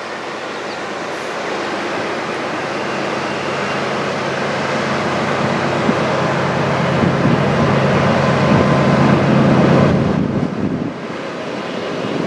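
GE AC4400CW diesel-electric locomotives hauling a heavy freight train, their engines running with a steady low hum over the rumble of the train on the rails, growing louder as they come closer. The sound drops away suddenly about ten seconds in.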